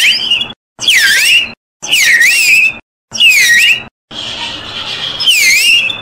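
Small wooden bird whistle blown in short chirps about once a second, imitating birdsong. Each chirp dips in pitch and swoops back up. A little past four seconds there is a weaker, breathy blow before the last chirp.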